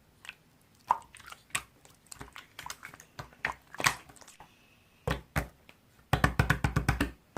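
Slime being squished and worked by hand, giving irregular wet clicks and crackles, then a fast run of loud popping clicks near the end as air pockets in the slime burst.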